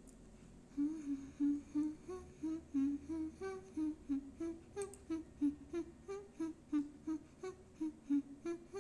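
A woman's voice humming the song's instrumental line a cappella. It sings short, separate notes, about three a second, that step up and down in pitch, starting about a second in.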